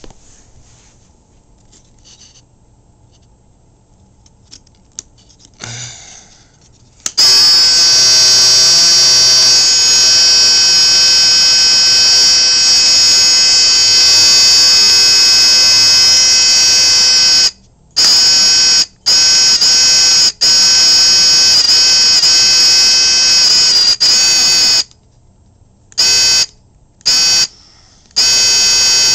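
Alarm sounder of a small wooden alarm gadget. After a few faint clicks it starts about seven seconds in and sounds a steady, high-pitched tone for about ten seconds. It is then switched on and off in pulses of uneven length, demonstrating fire alarm signal codes.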